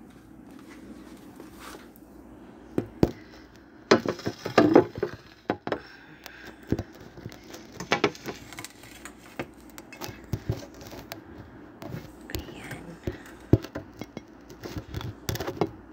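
Handling noise: scattered knocks, clicks and crinkling as a phone is set up and an aluminium foil food tray is moved on a table, with the loudest cluster about four to five seconds in.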